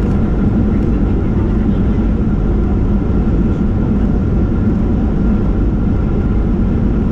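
Steady engine and air rumble inside an airliner cabin in flight, with a constant hum over it.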